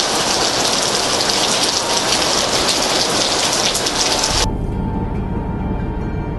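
Heavy rain pouring down steadily. About four seconds in it cuts off abruptly to a low, steady rumble inside a car's cabin, with faint music over it.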